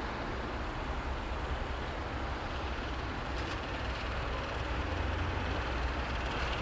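CFR class 62 (LDE) diesel-electric locomotive moving slowly during a shunting move, its diesel engine giving a steady low rumble that grows slightly louder near the end as it comes closer.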